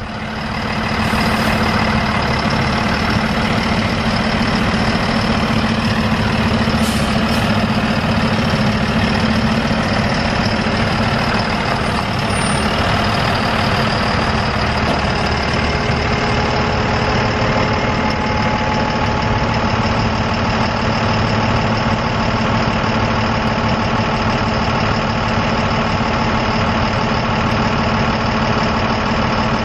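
Mercedes-Benz MBE900 6.4-litre inline-six diesel engine of a Freightliner M2 truck idling steadily.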